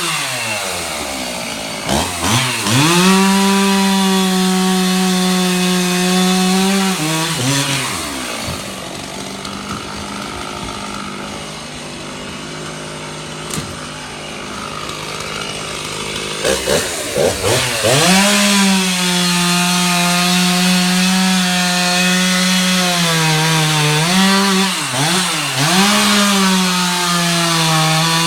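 Chainsaw cutting a fallen tree limb, running at high revs, dropping back to a low, quieter idle for several seconds in the middle, then revving up again, with short dips in pitch near the end.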